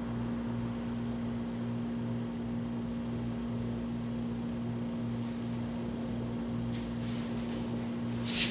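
A steady low mechanical-sounding hum with a regular throb about every half second, and a brief loud hiss near the end.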